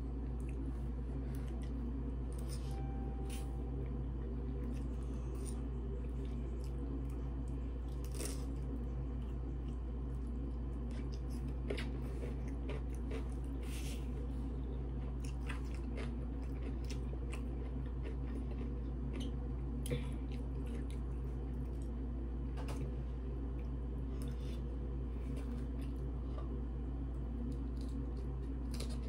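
Close-up eating sounds: crunching bites of raw cucumber and wet chewing, with scattered small clicks of a spoon against a plate. A steady low hum runs underneath.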